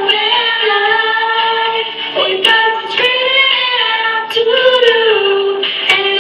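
A young girl singing solo into a microphone, holding long sustained notes and sliding between pitches.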